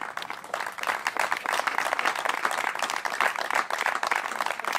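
Crowd applauding, a dense run of hand claps that swells about half a second in and then holds steady.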